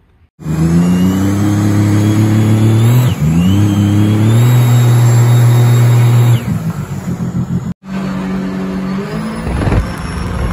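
Supercharged Rotax 300 hp engine of a small jet boat running hard at speed, its note climbing steadily with a high whine above it; the throttle dips and comes back about three seconds in. The sound cuts twice in the editing, and the engine is heard again near the end.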